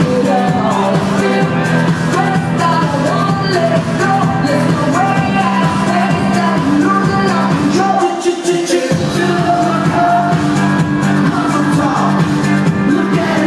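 Loud dance music with a sung vocal over a steady bass line. The bass cuts out for about a second a little past halfway, then comes back in.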